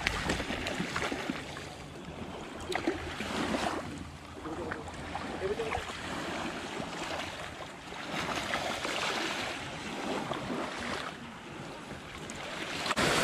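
Water splashing and lapping in the shallows as a hooked salmon thrashes at the surface, in uneven swells with a few sharp splashes, and wind rumbling on the microphone.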